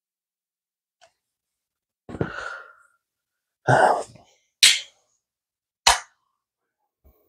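A couple of short throat or breath sounds, then an aluminium beer can cracked open by its pull tab: a sharp pop with a quick hiss about halfway through, and a second short click about a second later.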